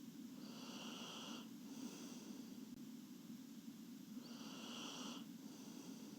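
Soft snoring of a sleeping girl: two slow, faint breaths. Each is a hissy inhale of about a second followed by a quieter exhale, over a steady low hum.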